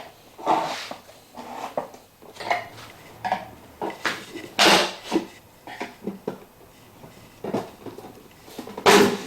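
Screwdrivers prising apart the plastic halves of a washing machine door: irregular clicks, scrapes and clatter of plastic, loudest about halfway through and again near the end.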